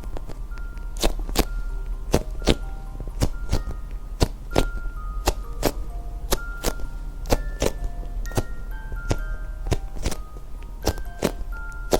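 Background music: a light, music-box-like melody of short notes over a crisp percussion beat that falls in pairs of clicks about once a second.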